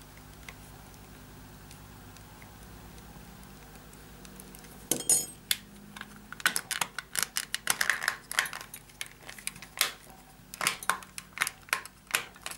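Plastic alarm clock casing being handled and pressed together, a rapid irregular series of light clicks and knocks starting about five seconds in. Before that only a faint steady hum.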